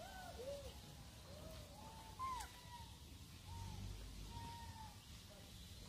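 Infant rhesus macaque crying with a string of faint, short coos, about eight in a row, each rising then falling in pitch.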